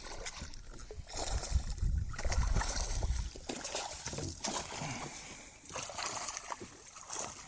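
Water splashing and sloshing at the side of a kayak as a just-caught speckled trout is brought in and handled. Low knocks and rustling are heaviest in the first half.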